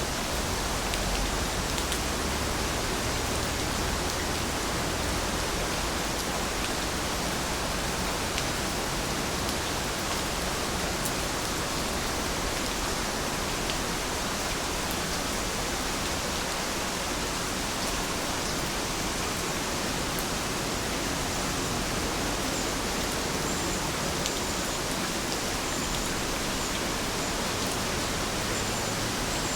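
Steady rain falling: an even, unbroken hiss with scattered faint ticks of drops.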